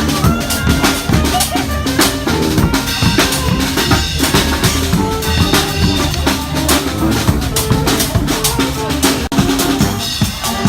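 Marching brass band playing with heavy drums: bass drum and snare beating a dense, steady rhythm under sustained horn lines.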